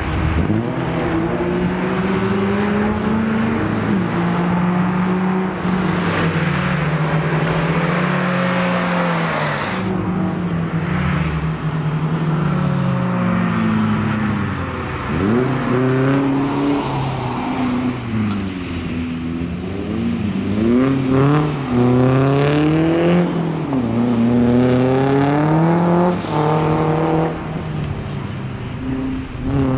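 Peugeot 306 engine revving hard through a timed lap: its pitch climbs and drops again and again with the gear changes and lifts for corners. A steady high hiss runs under it for about the first ten seconds, then cuts off suddenly.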